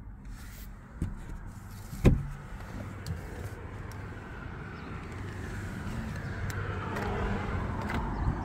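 Handling noises in a car cabin, with a sharp thump about two seconds in. The car door then opens and outside street noise grows steadily louder, with a few clicks and knocks near the end.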